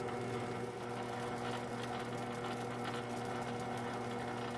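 Metal lathe running at a steady speed, its motor and spindle giving a constant hum, while a parting tool cuts off the spinning workpiece.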